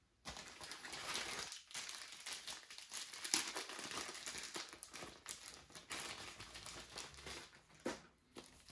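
Packaging crinkling and rustling as it is handled, a busy run of crackles and small clicks that breaks off briefly about one and a half seconds in and again near the end.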